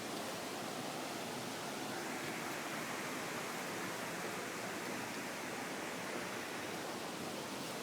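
Steady rush of falling water from a waterfall: an even hiss with no separate events.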